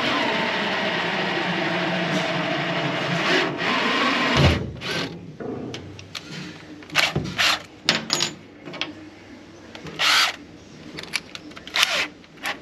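Cordless drill running steadily as it drives bolts into the generator shelf, stopping with a knock about four and a half seconds in. After that come several short, sharp noises.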